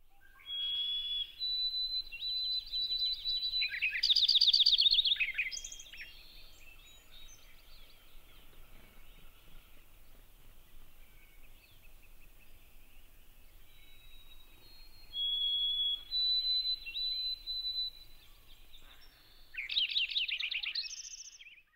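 A sparrow singing twice: each song opens with long, clear whistled notes and breaks into a fast trill and jumbled notes. The first song starts right away and the second about fifteen seconds in, with faint chirps between them.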